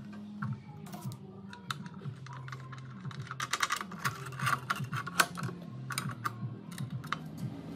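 Irregular light clicks and taps of metal parts as hands move an angle grinder on the spring-loaded pivot arm of a steel cutting stand, with a busier cluster of clicks through the middle.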